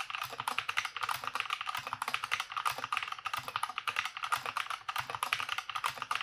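Fast, continuous typing on a Redragon K530 60% mechanical keyboard with Outemu brown tactile switches: a quick, even run of key clacks.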